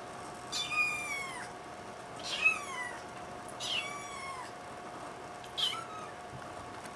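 Young kitten meowing four times, high-pitched calls that fall in pitch, the last one short.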